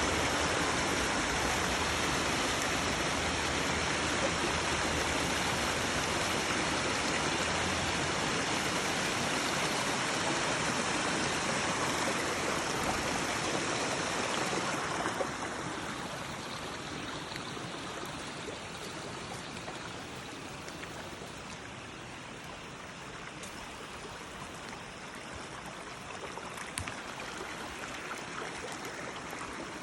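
Small creek waterfall, water splashing and rushing steadily; the rushing turns quieter about halfway through.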